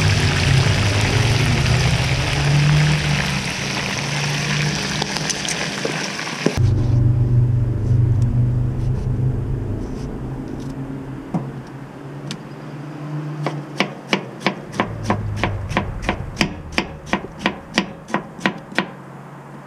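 Whole redear sunfish deep-frying in a pan of hot oil, a steady loud sizzle that cuts off about six and a half seconds in. Then a chef's knife slicing tomatoes on a plastic cutting board: a few scattered taps, and near the end a run of quick chopping strikes on the board, about three a second.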